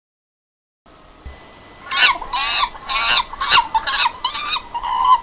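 Animal sound effect: a run of about seven short, high squealing calls with bending pitch, starting about two seconds in after a silent gap.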